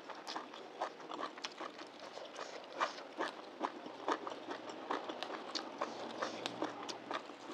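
Crisp lettuce and herb leaves being torn apart by hand: a quick, uneven run of small crackles and snaps.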